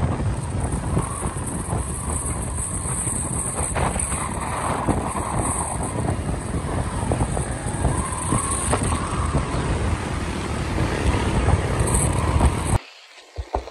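Riding noise from a motorbike at speed: wind buffeting the microphone over the engine and road rumble. Near the end it cuts off abruptly to much quieter sound.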